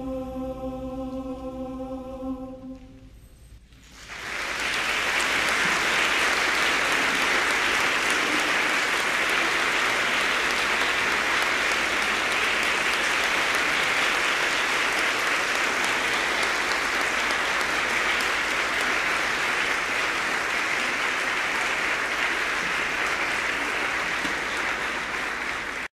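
A men's choir holds a final chord that dies away about three seconds in. After a brief hush, an audience breaks into steady applause about four seconds in.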